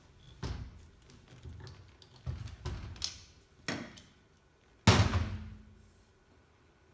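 Knocks and clatters from a PEX crimping tool and 1/2-inch pipe fittings being handled and set down. There are a few light knocks early on, then a louder knock about five seconds in, with a brief ringing after it.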